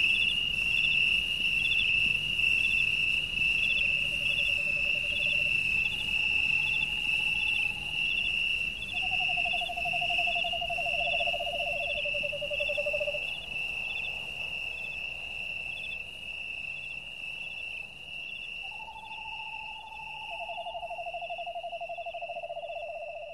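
Night insect chorus: a steady high trill, pulsing slightly, that grows fainter in the second half, with shorter, lower trills at several pitches coming and going.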